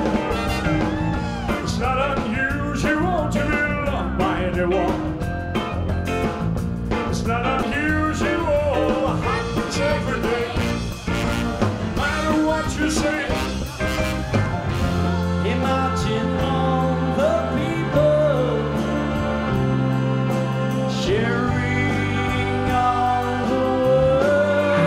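Live stage band music with a male singer. About fifteen seconds in it changes to a different song.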